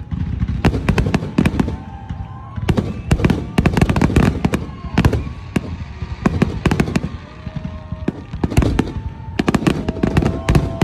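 Aerial fireworks display: a dense, rapid run of shell bursts, many bangs close together with hardly a pause.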